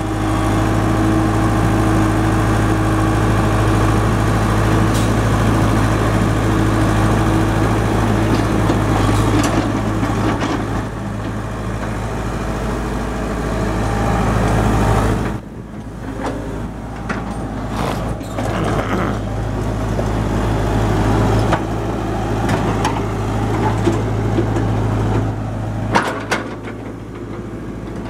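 Heavy diesel engine running steadily with a deep hum. It drops in level about halfway through, and a few sharp knocks come near the end.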